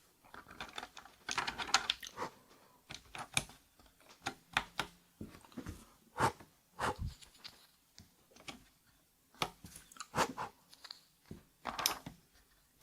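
Keys of an 8BitDo Retro Mechanical Keyboard being pressed by hand, irregular single clicks and short clusters of clacks with brief pauses between them.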